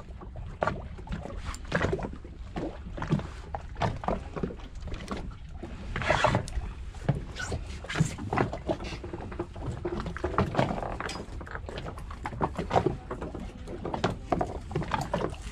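Water slapping and knocking against the hull of a small drifting fishing boat, in irregular knocks and splashes over a steady low rumble.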